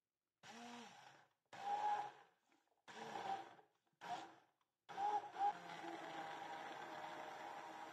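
Immersion blender blending soaked rice, almonds, walnuts and a cinnamon stick in milk in a glass bowl: switched on in four short bursts, then running steadily from about five seconds in.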